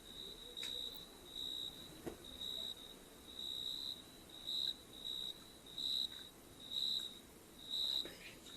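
Cricket chirping: a high, thin chirp repeated steadily about once a second.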